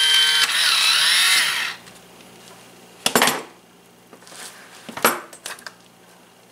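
Battery-powered electric can opener whirring around a can of pie filling, its motor pitch wavering, on batteries the owner thinks may be running low; it stops about a second and a half in. Then two sharp clacks a couple of seconds apart as the opener is set down and the lid is lifted with a spoon.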